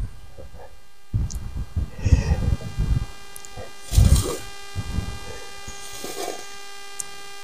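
Steady electrical hum and buzz from a cheap wireless microphone, broken by irregular low rumbling bursts of wind or rubbing on the mic and a few faint ticks.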